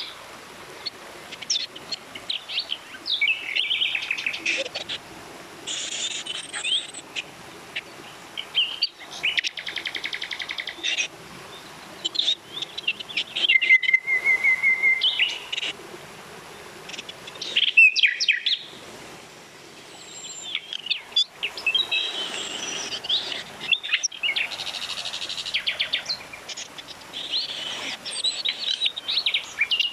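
Songbirds chirping and trilling, with several different calls overlapping and coming and going, over a steady low rush of flowing water.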